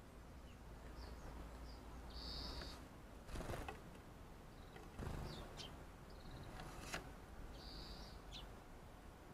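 Wild garden birds giving short high calls, among them two buzzy calls about five seconds apart. Two brief rushing noises come between them, and a sharp click comes near the end.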